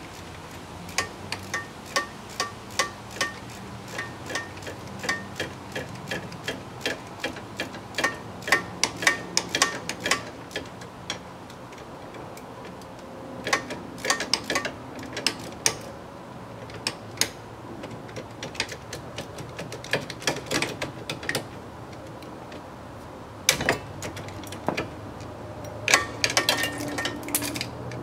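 Ratchet wrench clicking in quick, regular strokes as the hub assembly's mounting bolts are run in from behind the steering knuckle, then in shorter, uneven bursts.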